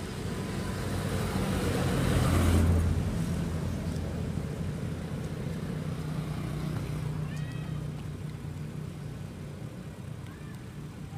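A motor vehicle passing: a low engine hum and road noise build to a peak about two and a half seconds in, then slowly fade. A few faint high chirps come near the middle.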